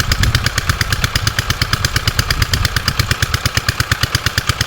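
Small boat engine running steadily with a rapid, even chugging of about a dozen beats a second.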